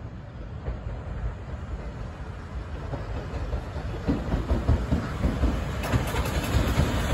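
C12 steam tank locomotive with its coaches approaching along the track, a low rumble that grows steadily louder, with sharp clicks starting near the end.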